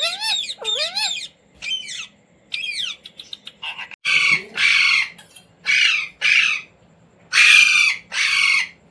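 Indian ringneck parrot squawking. It starts with some warbling chatter that glides up and down in pitch, then gives harsh screeches in three pairs over the second half.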